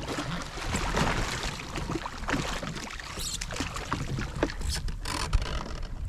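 Water splashing and sloshing beside a drifting jet ski, with scattered short knocks and clatter.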